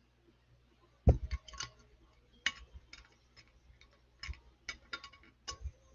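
Clicks and knocks of a glass whiskey bottle being capped and moved about on a tabletop beside a shot glass: a heavier thud about a second in, then a scatter of lighter glassy ticks and taps.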